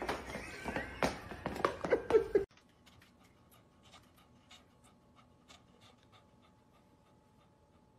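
A dog panting while its rain boots clomp and scuff on a hardwood floor. After about two and a half seconds this cuts off abruptly, leaving only faint, regular ticking.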